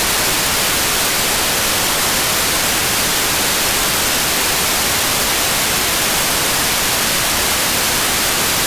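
Loud, steady FM radio static from an AirSpy Mini software-defined receiver tuned to the ISS downlink on 145.800 MHz, with no voice on the channel between the contact's speech transmissions.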